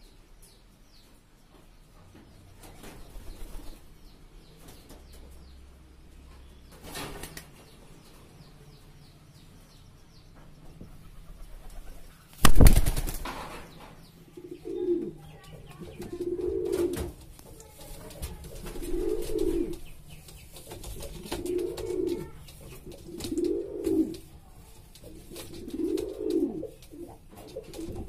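Pigeon wings flapping in short flutters, building to one loud burst of wing beats about halfway through as a bird takes off. A pigeon then coos over and over, a low falling call about every two seconds.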